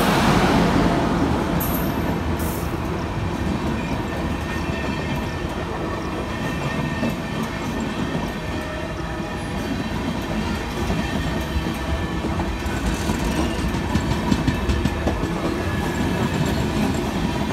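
Passenger train passing close by: a steady rumble of steel wheels on the rails, loudest at the start as the locomotive goes past, then the coaches rolling by with a run of sharper clacks from the wheels over rail joints near the end.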